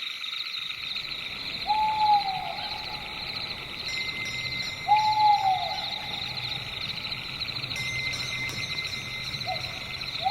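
An owl hooting: three single hoots a few seconds apart, each dropping in pitch at the end, the last one short. Under them, a steady high chorus of night insects trilling.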